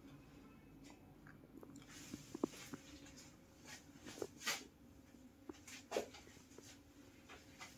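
Faint scattered clicks, taps and rustles of things being handled in a small room, over a low steady hum; the loudest taps come about two and a half, four and a half and six seconds in.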